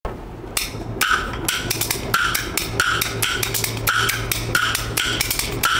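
Kuaiban bamboo clappers clacking a steady rhythm of about three to four strokes a second, starting about half a second in, over a low steady tone.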